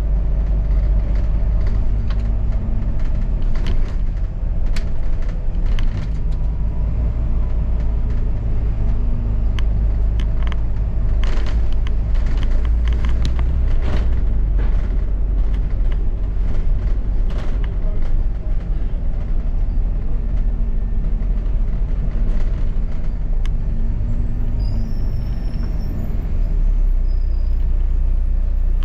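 Ride aboard a double-decker bus: steady low engine and road rumble, with a run of short clicks and rattles through the middle.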